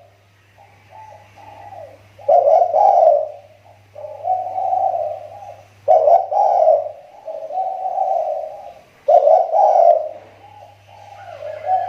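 Spotted dove (tekukur) decoy bird cooing: three phrases about three and a half seconds apart, each a loud opening note followed by softer notes. Its voice is starting to recover after a spell of dropping off.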